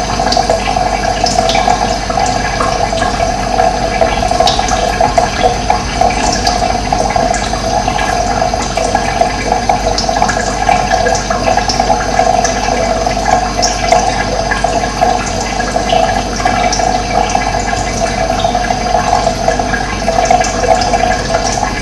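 Running water rushing steadily, with short high bird chirps here and there.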